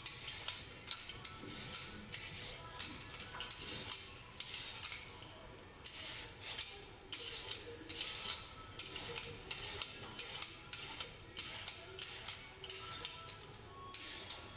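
Short, scratchy scrapes of a stainless steel julienne peeler drawn down a raw carrot in repeated strokes, over background music with a shaker-like rhythm.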